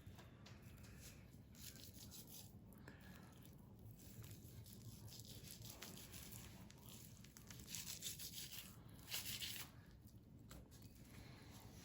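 Faint knife strokes cutting and scraping fat from a raw beef brisket: soft rubbing strokes, with two slightly louder scrapes about eight and nine seconds in.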